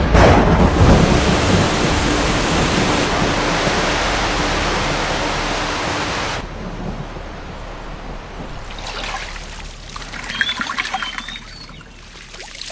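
Rushing water, a loud steady roar that cuts off abruptly about six seconds in; after it, a quieter stretch with scattered clicks and a few short chirps.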